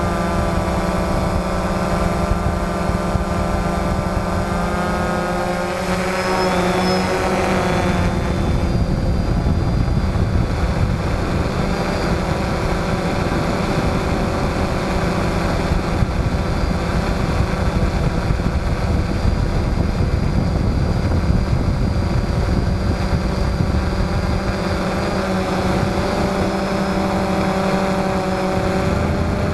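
DJI Phantom quadcopter's four electric motors and propellers running steadily, picked up by the camera on board, with a heavy rumble of prop wash and wind. The whine of the motors shifts in pitch about six to eight seconds in as the drone changes its flight, then settles again.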